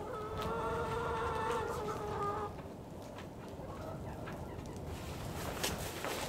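Laying hen giving one drawn-out call lasting about two seconds, followed by quieter hen-house noise with a few light clicks near the end.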